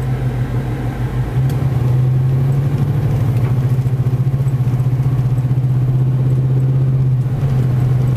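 Car engine and road noise heard from inside the cabin while driving slowly: a steady low drone, which pulses quickly and evenly from about two seconds in until about seven seconds in.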